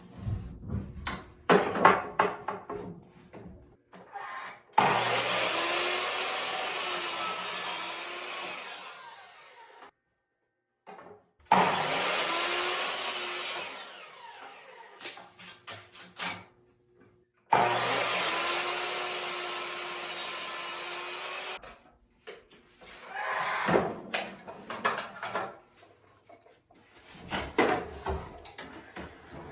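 Electric miter saw run three times, each for a few seconds, cutting pre-primed pine boards to length. Its motor whine sags as the blade bites, and the boards knock and clatter as they are handled between cuts.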